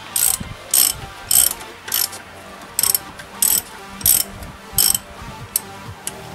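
Hand socket ratchet clicking in short bursts, about one every two-thirds of a second, as it is swung back and forth on a front brake caliper bolt; the bursts grow fainter near the end.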